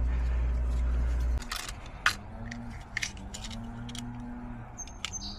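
Scattered sharp clicks and light rattles of small parts being handled while a replacement fuse is fetched, after a steady low rumble that cuts off abruptly about a second and a half in. A few short high chirps sound near the end.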